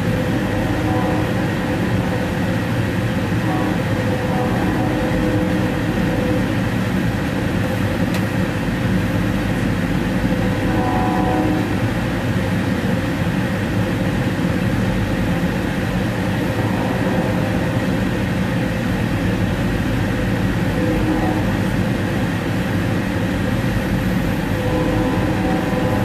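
Steady rolling rumble of an Amtrak Lincoln Service passenger train, heard from inside its dome car as it moves along the track, with faint tones that come and go.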